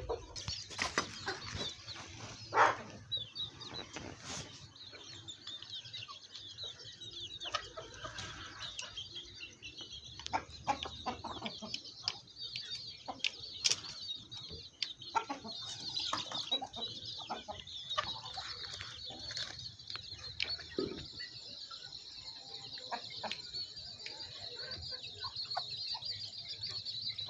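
Aseel chickens clucking, with scattered clicks and one louder knock about two and a half seconds in. A high continuous trill runs in the background from about halfway.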